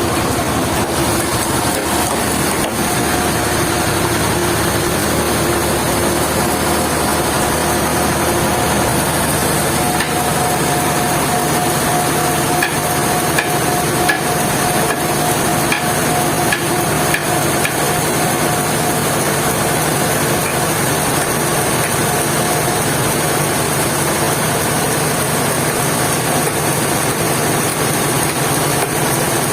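Sawmill machinery running steadily, a continuous mechanical drone with a humming tone, broken by a few scattered knocks.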